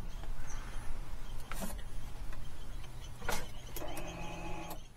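Handbrake lever clicks twice over a steady low hum, then, about a second before the end, the electric parking brake's caliper motors (Audi A3 / VW Tiguan EPB calipers) whine for about a second as the brake applies.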